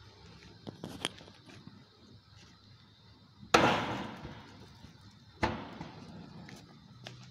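Two sharp knocks about two seconds apart, the first the louder, as the cloth cushion carrying a naan bumps against the inside wall of a metal drum tandoor; each knock rings briefly in the metal drum. A few faint clicks come before them.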